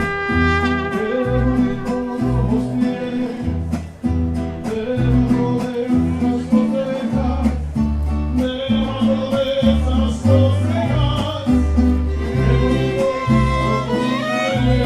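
A mariachi band playing a song: violins and guitars over a pulsing deep bass line, with singing.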